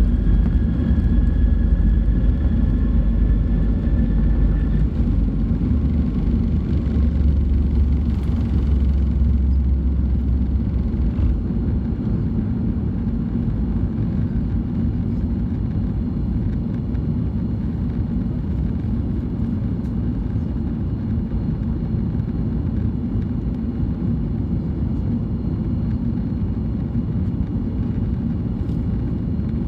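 Boeing 737 MAX 8's CFM LEAP-1B engines at takeoff power, heard from the cabin. A heavy runway rumble cuts off about eleven seconds in as the wheels leave the ground, and the engines then run steadily through the climb.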